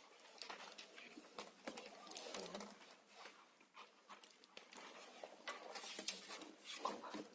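Hands lathering shampoo into a wet spaniel's coat: irregular wet rubbing, squishing and patting sounds.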